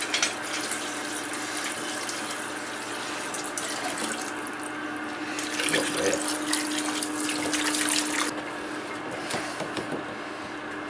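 Liquid pouring in a thin stream from a plastic jug into a plastic barrel of vinegar-and-water electrolysis bath, a steady splashing trickle that grows louder for a couple of seconds around six to eight seconds in.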